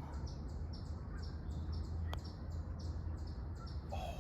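A single sharp click about two seconds in, a putter striking a golf ball, over steady high chirping that repeats about two to three times a second and a low rumble.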